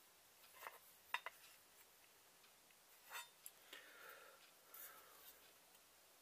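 Faint, irregular clicks and short light scrapes as a knife blade, a handle scale and a small file are handled and fitted together; one sharp click about a second in is the loudest.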